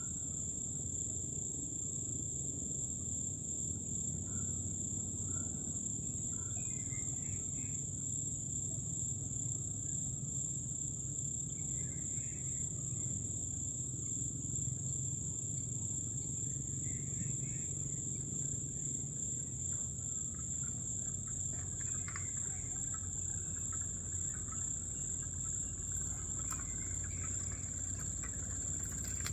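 Steady high-pitched drone of insects in a pine forest, with short bird chirps every few seconds.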